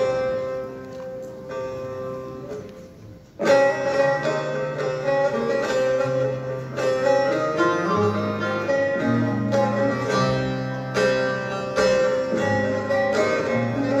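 Live Turkish folk ensemble of bağlamas and acoustic guitar playing. A held note fades away over the first few seconds, then the whole ensemble comes in loudly about three and a half seconds in, with quick plucked notes over a moving bass line.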